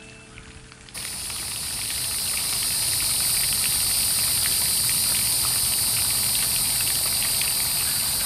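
Outdoor woodland ambience dominated by a steady, high-pitched chorus of insects buzzing, with fine ticking and a low rumble underneath. It comes in abruptly about a second in.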